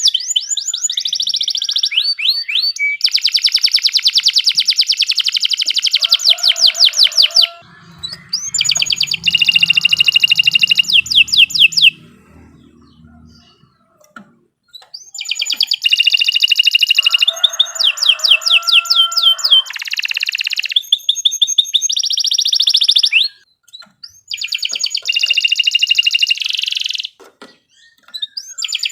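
Domestic canary singing a long song of rapid, high trills and repeated notes, in phrases broken by short pauses.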